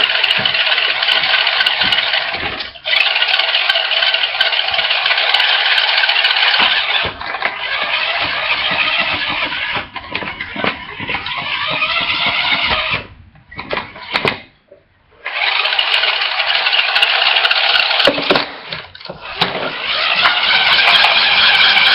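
Toy race car playing electronic engine-revving sound effects through a small speaker, loud and thin with almost no bass, cutting out briefly a few times and rising in pitch near the end.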